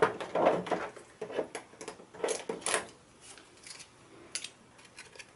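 Cut card and paper pieces being lifted off a cutting mat and handled: a string of irregular paper rustles and light taps, busiest over the first three seconds, then dying down to faint handling noises.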